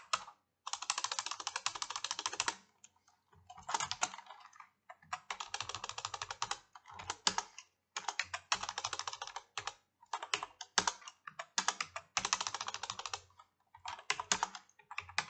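Typing on a computer keyboard: quick runs of keystrokes separated by short pauses.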